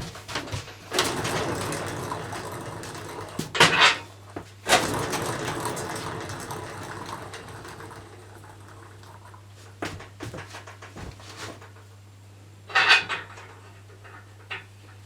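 Knocks and clatter of things being handled, with two longer noisy stretches in the first half that fade out, over a steady low hum.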